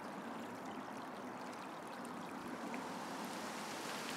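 Steady, even rushing noise of outdoor ambience with no distinct events.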